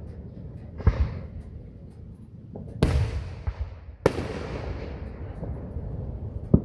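Aerial fireworks bursting: four bangs, the middle two the loudest, each trailing off over a second or more.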